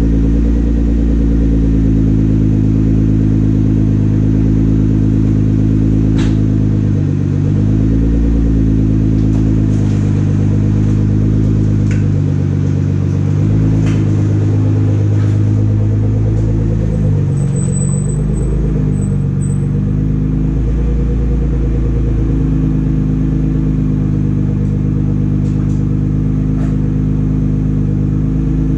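Nissan GT-R's twin-turbo V6 running at a steady idle through an aftermarket exhaust in its first minutes after a cold start. The engine note dips and rises briefly a few times as the car is driven off.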